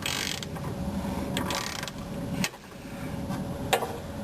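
A wrench tightening the lower mounting bolt of a rear shock absorber on a 1990 Mercedes 420 SEL: two short stretches of rapid metallic clicking, one at the start and one about a second and a half in, then a couple of single clicks.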